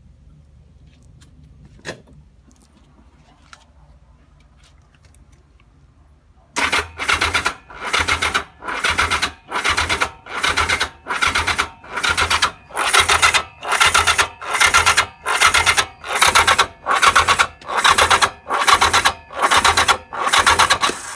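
Motorcycle's electric starter cranking the XS1000 engine in even pulses, about one a second, without the engine catching. The bike won't start since its timing plate and ignition parts were taken off and refitted.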